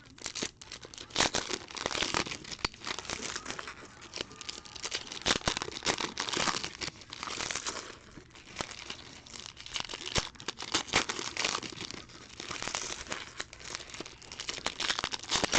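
Trading-card pack wrappers being torn open and crinkled by hand, giving a continuous run of irregular crackling and tearing.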